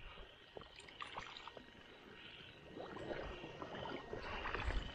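Slow footsteps wading through shallow, weed-covered water and mud: soft sloshing and small splashes, growing a little louder in the second half.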